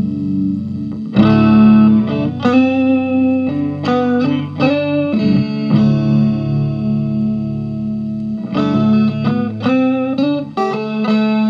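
Electric guitar played through an FV-1 DSP effects board: chords and single notes picked with ringing sustain, a new note or chord struck every second or two.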